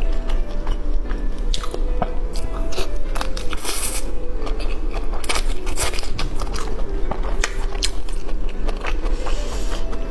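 A person biting and chewing food close to the microphone, with many sharp crunchy clicks and wet mouth sounds. Faint music plays underneath.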